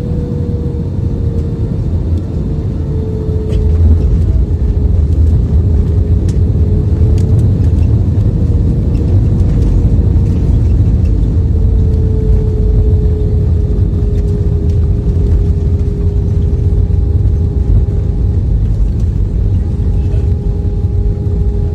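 Airliner cabin noise: a loud, steady rumble of the jet engines and airflow, with an engine tone that drifts slowly lower, growing louder about four seconds in.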